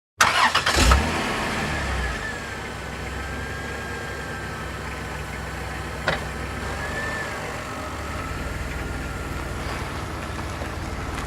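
Car engine cranked by the starter and catching within about a second, then running at a fast idle that settles into a steady idle with a faint high whine. A single sharp click about six seconds in.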